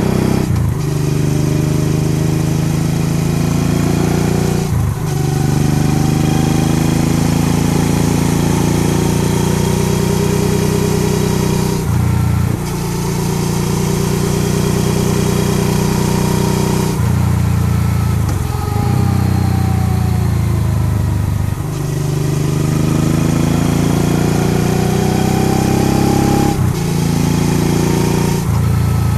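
Honda Transalp XL650V's V-twin engine running on the road, its pitch rising and falling with the throttle and breaking briefly about six times at gear changes, with steady wind rush over it.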